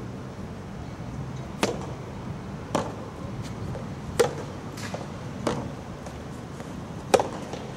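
Soft tennis rally: rackets striking the soft rubber ball in turn, about five sharp hits a little over a second apart.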